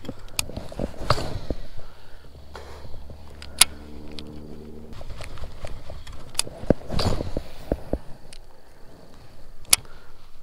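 Baitcasting rod and reel being worked from a kayak: scattered sharp knocks and clicks of gear against the hull, two short rushing noises, and in the middle about two seconds of a steady low hum from the reel being cranked in.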